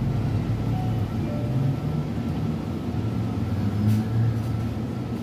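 Convenience-store background sound: a steady low hum with faint background music.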